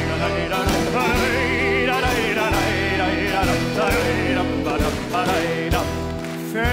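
Live folk band playing an instrumental interlude between verses: a fiddle carries a wavering, ornamented melody with vibrato over sustained bass and accompaniment.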